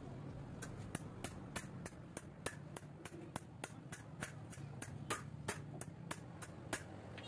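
Short, sharp clicks at a steady pace of about three a second, from the parts of a motorcycle rear shock absorber being handled and worked.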